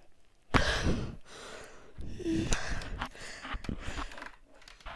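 Close-up breaths and mouth noises of someone licking a salt lamp: a sharp breath about half a second in, then softer breathy, wet licking sounds with a few small clicks and a short hum near the middle.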